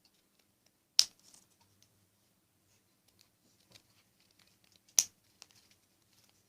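Ordinary scissors cutting through a stack of glued thin cardboard: two sharp snips, about a second in and about four seconds later, with faint cardboard and paper rustling between them.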